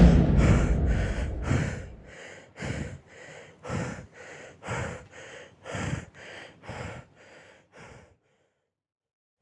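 A loud gasp followed by a run of heavy, noisy breaths, about two a second, that grow fainter and stop about eight seconds in.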